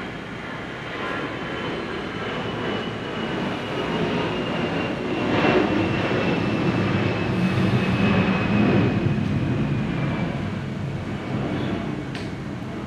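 A loud, dense rumble that builds to a peak about midway and then eases off, with a faint high tone sliding slowly downward.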